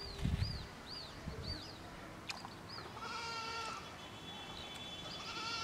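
A goat bleating, once about three seconds in and again near the end, with a bird's quick high chirps repeating in the first two seconds.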